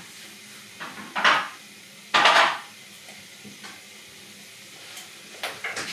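Dishes and utensils being handled: two short, loud clattering scrapes about a second apart, with a few smaller knocks near the end.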